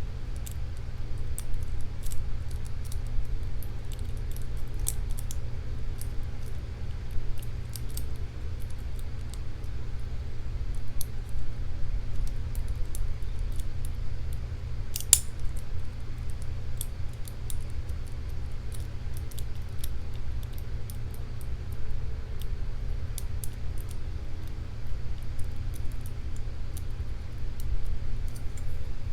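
Lock pick and tension wrench working inside a Paclock 200A padlock: scattered small metallic clicks and scrapes as pins are lifted and set, with one sharper click about halfway through. A steady low hum runs underneath.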